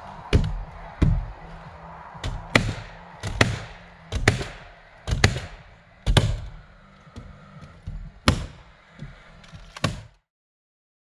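Nails being driven into Zip System wall sheathing panels on a wood-framed wall: about a dozen sharp strikes at uneven intervals, each with a short ring. The sound cuts off suddenly near the end.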